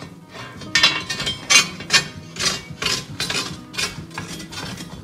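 Metallic clinks and rattles, about two a second, as the steel cutting edge of a hydraulic chassis hole punch is screwed by hand onto its threaded arbor, the metal parts knocking against each other and against the steel plate.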